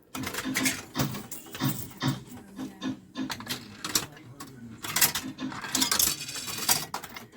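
Fruit machine being played: a run of clicks and short electronic tones, with two bursts of rattling noise about five and six seconds in.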